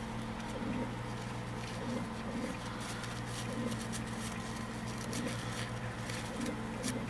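Faint handling noises from small parts being cleaned: light clicks and rubbing, over a steady low hum.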